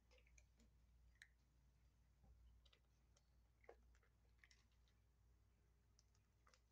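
Faint, irregular crunches and clicks of kittens chewing dry kibble and nosing it against plastic bowls, against a low hum.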